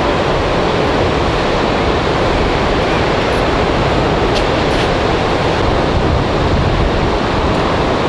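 Ocean surf breaking and washing up a sandy beach: a steady rushing wash of water without clear pauses between waves.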